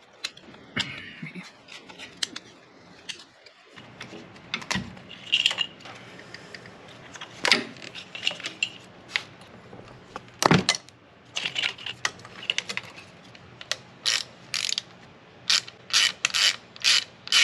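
Ratchet wrench clicking in short runs as bolts are undone, with taps and clinks of hand tools on metal; a fast run of clicks near the end.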